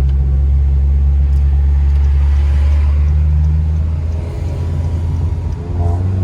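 Honda Civic Si's 2.4-litre four-cylinder engine running steadily under throttle while driving, a low drone. About four seconds in the level drops and the pitch shifts as the throttle eases.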